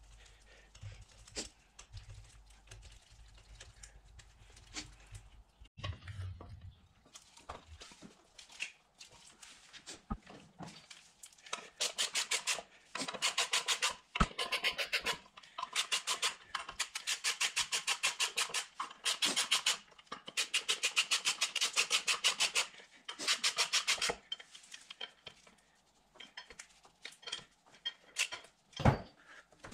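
Ratchet wrench clicking in quick, evenly spaced runs, several bursts in a row, as the bolts holding a motorcycle's rear sprocket to the wheel hub are run down. Before that, small clicks and knocks of parts being handled, and one sharp knock near the end.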